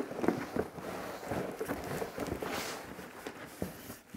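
Shipping bag and its paper wrapping rustling and crinkling as a hand digs through them, an uneven run of crackles and small snaps.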